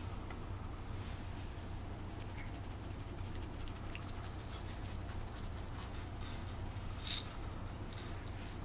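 Faint scratching and rustling of a month-old puppy and hands moving on a towel, over a steady low hum, with one sharp click about seven seconds in.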